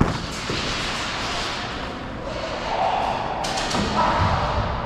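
A single sharp thump right at the start, followed by steady noisy rustling with a few faint clicks.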